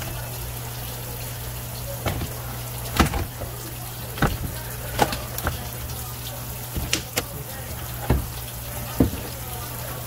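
Water running from a tap into a sink, over a steady low hum. Sharp knocks come irregularly, about once a second.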